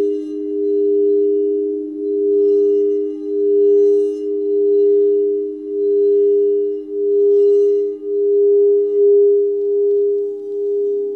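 Crystal singing bowls ringing in two sustained, overlapping tones, their sound swelling and dipping about once a second. A lower bowl tone comes in near the end.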